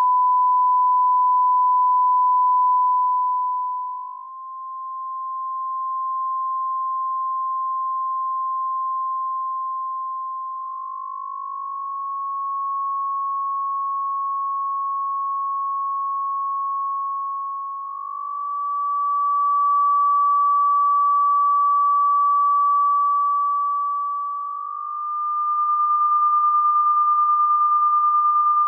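A pure electronic sine tone near 1 kHz, held steadily and stepping slightly higher in pitch every several seconds, swelling and dipping in loudness at each change: tones generated from EEG readings for cymatics.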